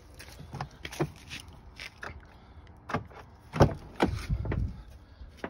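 2015 Chevrolet Silverado doors being handled: a string of latch clicks and knocks, the loudest a door thump about three and a half seconds in, followed by a short rattling stretch and another sharp knock near the end.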